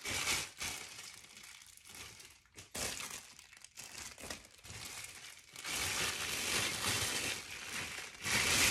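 Clear plastic wrapping crinkling as it is handled and wrapped around a ceramic wax warmer, in irregular rustles that grow louder and steadier about two-thirds of the way through.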